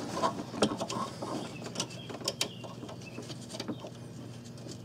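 Irregular light clicks and metal clinks as a nut is started by hand onto a bracket stud deep in an engine bay, thinning out after about two and a half seconds, over a faint steady low hum.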